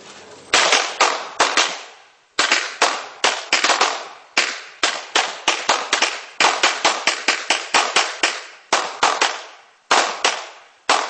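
A row of handguns firing together in a ragged volley: many sharp pistol shots in quick, irregular succession, some overlapping, each trailing off in a short echo. There is a brief lull about two seconds in, and another near the end.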